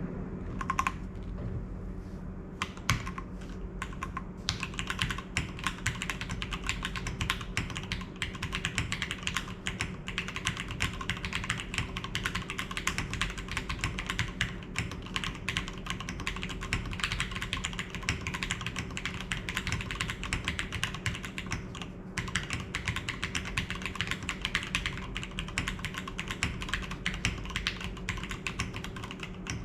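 Custom TKL mechanical keyboard with broken-in Cherry MX Black linear switches on a POM plate, no foam, being typed on. A few separate keystrokes come first, then fast continuous typing with a short pause about 22 seconds in. A faint steady low hum runs underneath.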